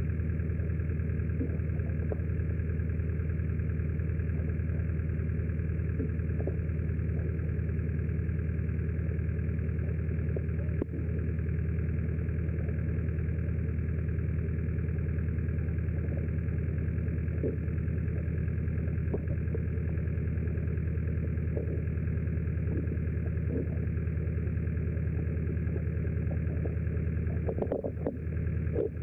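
Steady, low, throbbing hum of an idling boat engine carried through the water, with faint scattered clicks and a short cluster of clicks near the end.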